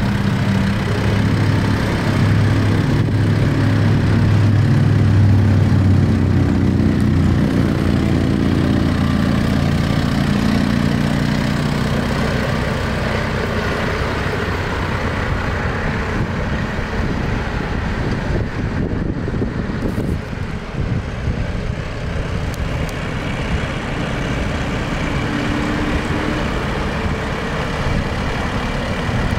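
2022 Kubota M4-061 tractor's four-cylinder diesel engine running as the tractor drives slowly about. It is loudest in the first dozen seconds, then fainter and steadier.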